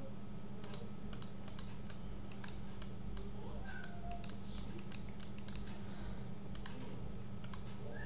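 Irregular clicking of a computer keyboard and mouse, about two or three clicks a second, over a steady low hum.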